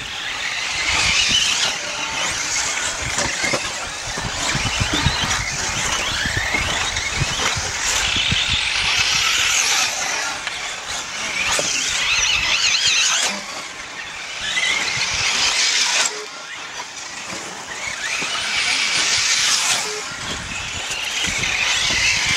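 Radio-controlled race cars on a dirt track: high-pitched motor whines that rise and fall again and again as the cars accelerate, brake and pass.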